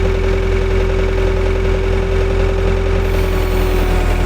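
JCB backhoe's diesel engine idling steadily after a start, with a low rumble and a steady whine that dips slightly in pitch near the end.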